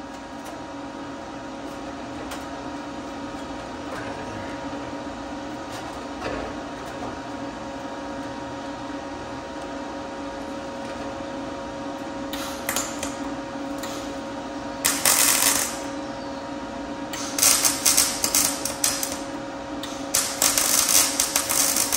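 MIG welder laying tack welds, metal flare to steel fender: a few bursts of dense crackle, each a split second to about two seconds long, starting about halfway through. A steady hum runs underneath.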